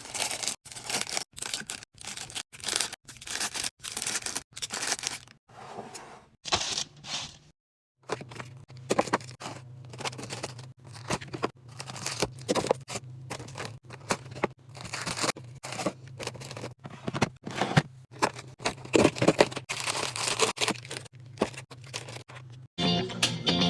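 Plastic food packaging crinkling and tearing, with many short clicks and knocks of items being handled and set down. A steady low hum runs under the second half.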